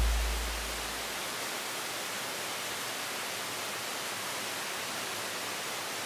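Steady, even rush of a waterfall, with background music fading out in the first second.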